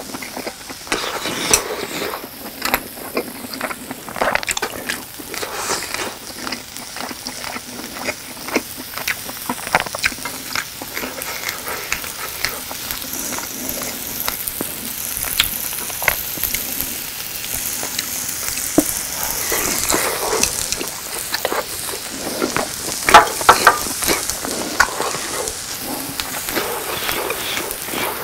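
Slices of grilling cheese sizzling on an electric grill plate, a steady hiss. Over it come close-miked chopstick clicks and chewing, with a cluster of louder sharp sounds about two-thirds of the way through.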